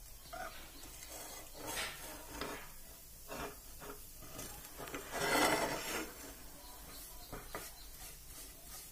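Wooden spatula scraping and pressing crumbly flour-and-butter roux around a nonstick pan, breaking up the lumps as the flour fries. The strokes are irregular, with the loudest about five seconds in.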